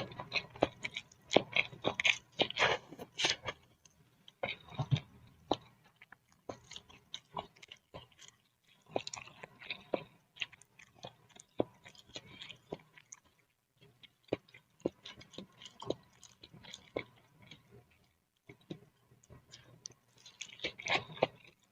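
Close-miked chewing of boiled instant noodle soup: wet mouth clicks and smacks in quick, irregular runs, with brief pauses.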